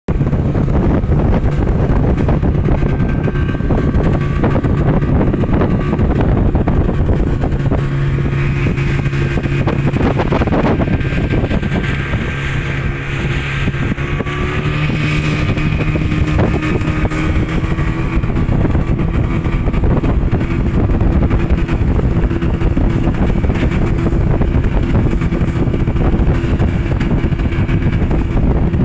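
A newly fitted engine running steadily at a constant speed for the whole stretch.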